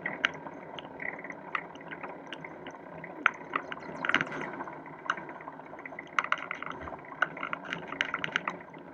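Riding noise of a bicycle on pavement picked up by a handlebar-mounted camera: a steady rush of tyres and moving air with irregular small clicks and rattles.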